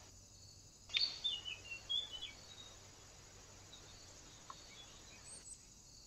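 A small songbird gives a quick run of chirps about a second in, lasting just over a second, over a steady background hiss.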